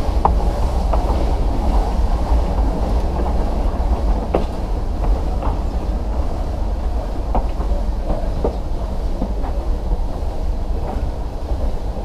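Nilgiri Mountain Railway metre-gauge train running slowly along the track: a steady low rumble with a few sharp clicks of the wheels over rail joints.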